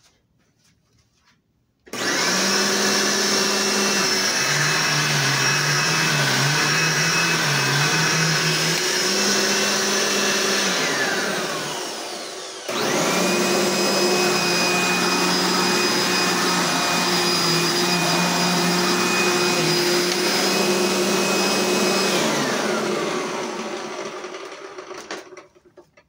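Eureka Bravo II 12-amp upright vacuum cleaners running in two turns. The first starts about two seconds in with a quick rising whine, dips in pitch for a few seconds, then shuts off and winds down. The second starts sharply right after and runs about nine seconds before spinning down slowly near the end.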